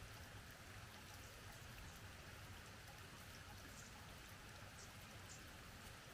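Near silence: a faint steady hiss, with a few faint ticks.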